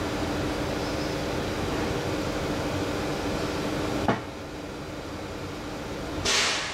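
A standing passenger train's ventilation and auxiliary equipment humming steadily; about four seconds in it cuts off with a sharp clunk and the hum drops. Near the end comes a short, loud hiss of released compressed air.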